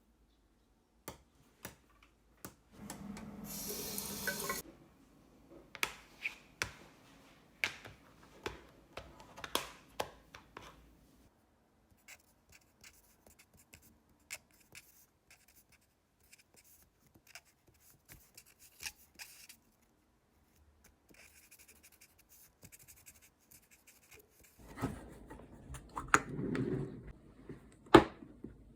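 Close-up handling sounds while tending frog eggs: scattered clicks, taps and rubbing, with a hissing rush about three seconds in that lasts over a second, and a denser bout of handling noise ending in a sharp knock near the end.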